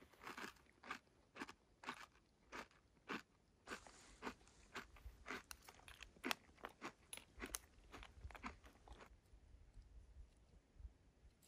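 Faint, regular crunching, about two crunches a second and coming a little faster later on, which stops about nine seconds in.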